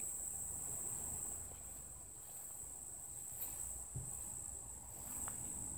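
Insects trilling steadily in one high, unbroken tone, over a low rumble, with two faint knocks a little past the middle.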